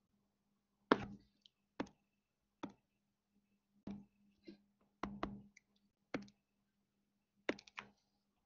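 About a dozen sharp taps and clicks of a pen stylus on a computer screen at uneven intervals, some in close pairs, over a faint steady electrical hum.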